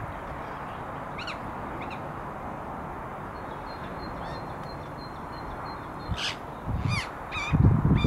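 Syrian woodpecker calling: short, sharp notes, two faint ones about a second in and three louder ones near the end, over steady background hiss. A low rumble comes in just before the end.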